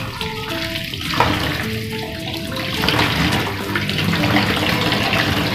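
Tap water running and splashing over spring onions as they are rinsed by hand in a bowl in a stainless steel sink, the water sound growing stronger about three seconds in. Light background music plays over the first half.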